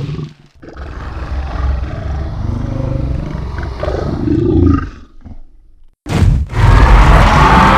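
Creature sound effect for Jaekelopterus, a giant sea scorpion: a growling roar lasting about four and a half seconds, then, after a short break, a second and louder roar starting about six seconds in.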